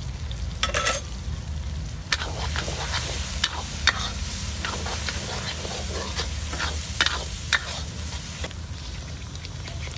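Long steel spatula stirring and scraping spiced masala in a black iron kadai, with irregular scrapes and clinks against the metal several times a second, over the hiss of frying oil.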